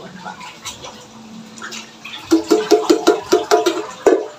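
Canned fruit cocktail syrup glugging out of an upturned tin can into a metal strainer: a quick run of hollow gurgles, about five a second, starting about two seconds in.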